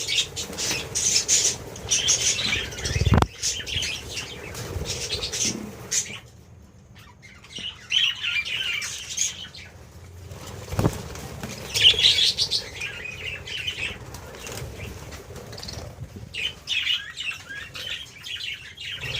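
A colony of budgerigars chirping and chattering in repeated bursts, with wings flapping. The calls drop away for a moment about six seconds in, and there are two short low thumps.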